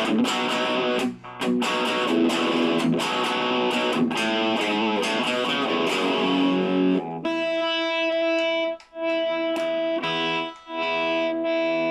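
Gibson Les Paul Custom electric guitar played through an amplifier: strummed chords for about seven seconds, then held chords left to ring, cut off and struck again twice. The rewired guitar is working properly, with no cutting out.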